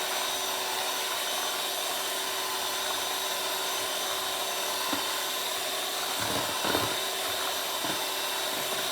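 Electric mixer running steadily at one speed, beating flour into crepe batter, with a few low knocks in the second half.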